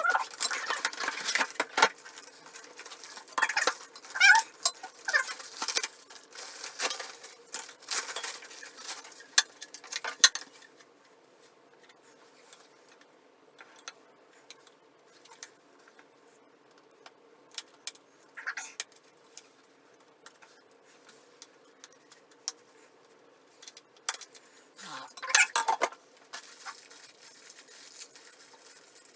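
Clinking and clattering of small metal tools and fittings being handled: a busy run of clinks for about the first ten seconds, then scattered ticks and another short clatter near the end, over a faint steady hum.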